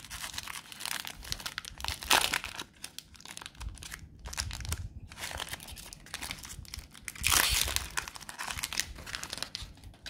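Plastic trading-card pack wrapper crinkling and tearing as the pack is opened, in irregular crackles, with a louder burst about two seconds in and the loudest about seven seconds in.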